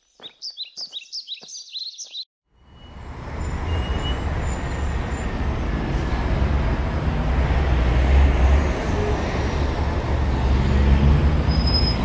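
A bird chirping in quick calls, about five a second, for the first two seconds. Then traffic noise from a car on a town street rises and holds steady and loud, heavy in the low end, until it cuts off abruptly at the end.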